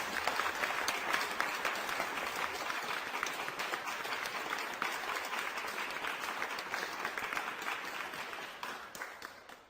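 Large crowd applauding, a dense, steady crackle of many hands clapping that dies away near the end.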